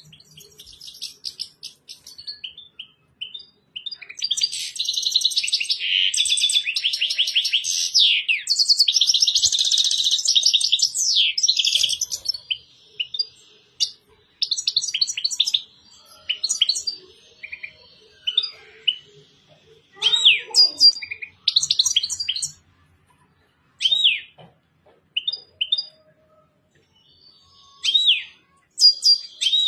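European goldfinch singing in a cage: a dense run of fast twittering song starts about four seconds in and lasts some eight seconds, followed by scattered short chirps and call notes.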